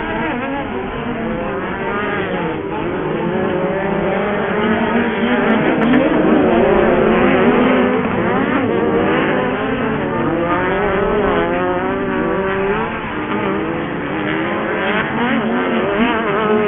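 Several off-road racing buggy engines revving hard on the track, their pitches rising and falling and overlapping as the drivers work the throttle through the course.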